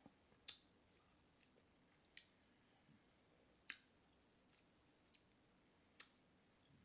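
Near silence broken by a few faint, sharp clicks and smacks of crab being eaten close to the microphone, at irregular gaps, the clearest about half a second in and again near the middle.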